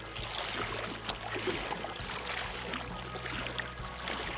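Water sloshing and splashing around the legs of people wading through shallow floodwater, with irregular small splashes from their steps.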